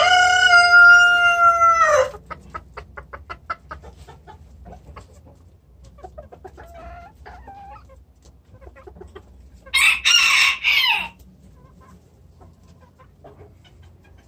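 A rooster crows loudly, one long held call that drops in pitch at the end, followed by a run of short quick pulses and a few soft calls. About ten seconds in, a rooster crows again, harsher and broken into short parts.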